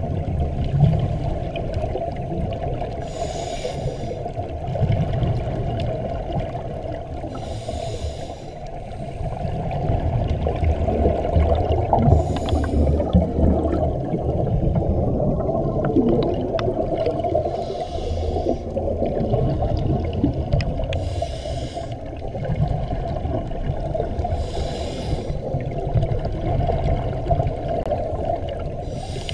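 A diver's scuba regulator breathing heard underwater: a short hissing breath about every four to five seconds, over a steady low rumble of water against the camera housing.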